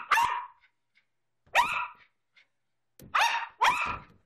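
Small black-and-white dog barking in excitement at play with a ball: four short, sharp barks, one at the start, one about a second and a half in, and two in quick succession near the end.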